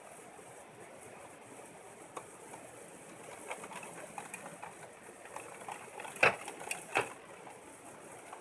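Steady hiss with scattered sharp clicks and taps that grow more frequent, ending in two loud clicks less than a second apart near the end.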